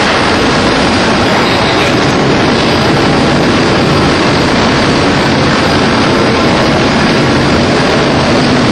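CNC machining center running, a loud, steady rushing noise with no breaks.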